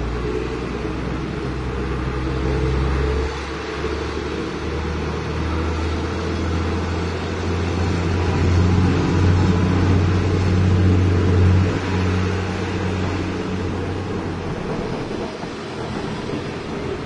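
Isuzu Giga 285PS truck's diesel engine heard from inside the cab while driving, a deep steady drone. The engine note steps down about three seconds in, builds again, then drops near the end.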